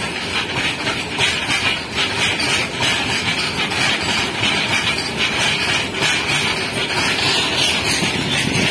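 Indian Railways freight train of open-top steel box wagons rolling past close by: a loud, steady rumble of wheels on rail with a hissing wheel-and-rail noise above it.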